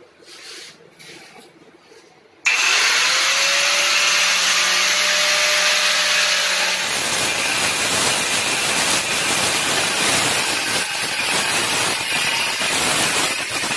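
An angle grinder switches on about two and a half seconds in, its motor whine rising as it spins up and then running free. From about seven seconds its disc cuts into a marble slab with a rough, steady grinding noise.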